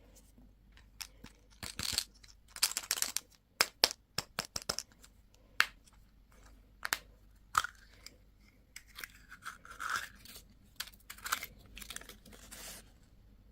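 Candy or toy packaging being torn open and handled: irregular tearing and crinkling in bursts, with sharp clicks and snaps.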